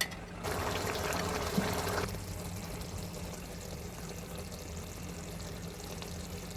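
Liquid poured into a pan of frying curry for about a second and a half, then a softer steady hiss.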